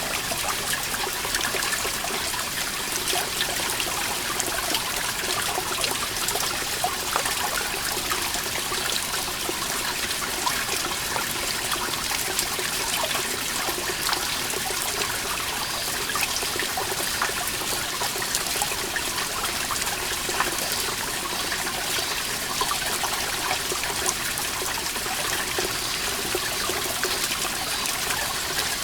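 Water dripping from a moss-covered rock wall: a dense, steady patter of many small drops with trickling water beneath.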